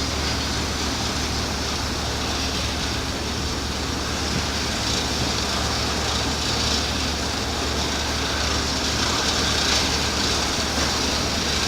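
A vessel's engine giving a steady low drone under an even rushing hiss, unchanging throughout.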